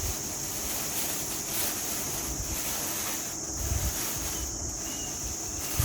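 Wind buffeting the microphone outdoors, in uneven gusts of low rumble over a steady high-pitched hiss.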